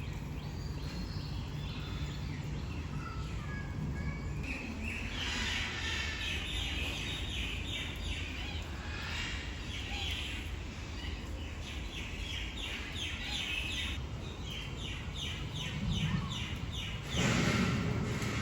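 Many birds chirping and calling, with quick repeated chirps over a steady low background hum, and a louder burst of sound near the end.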